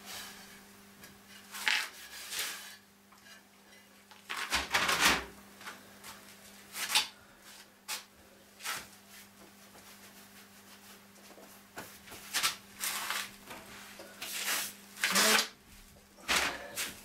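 Objects being handled on a workbench: scattered short rustles, scrapes and clunks, with a few longer swishing rubs, over a steady low hum.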